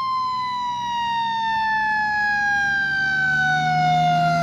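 Fire-engine siren winding down: one long wail that slides slowly and steadily lower in pitch.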